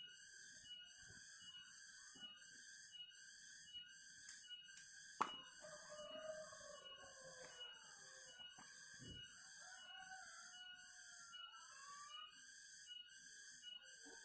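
Faint, regular chirping, about two pulses a second, with one sharp click about five seconds in and a few faint gliding calls.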